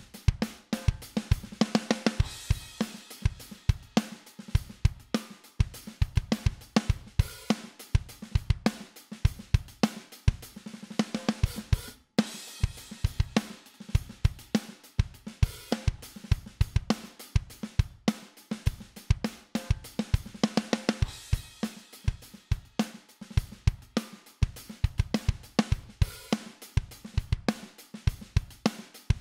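A drum bus of a full kit plays a steady groove: kick, snare, hi-hats and cymbals, heard through a Midas 522 500-series compressor. The groove briefly breaks off once, about twelve seconds in.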